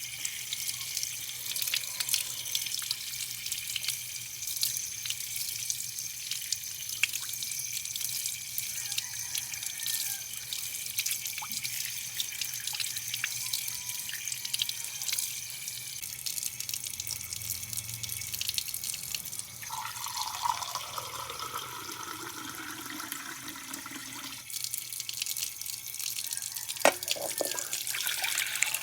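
Water running from a tap and splashing into a sink, with many small drips and splashes. About twenty seconds in, a tone slides downward for a few seconds.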